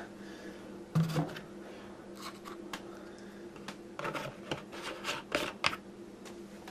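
Scattered light clicks and knocks, about a dozen, over a steady low hum.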